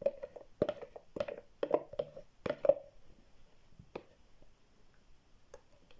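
Metal spoon scraping and knocking against the inside of a plastic yogurt tub, scraping out the last of it. There is a quick run of scrapes with a hollow ring in the first three seconds, one more knock about four seconds in, then only faint ticks.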